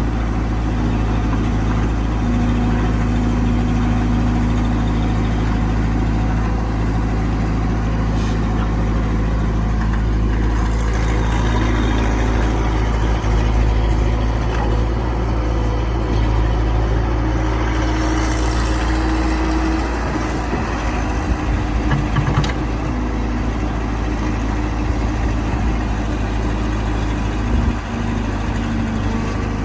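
Excavator's diesel engine running steadily under working load, its note changing about two-thirds of the way through, with a couple of sharp knocks.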